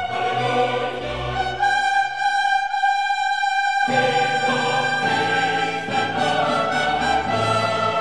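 Background choral and orchestral music. About two seconds in, the low parts fall away under a held high note, and the full ensemble comes back about four seconds in.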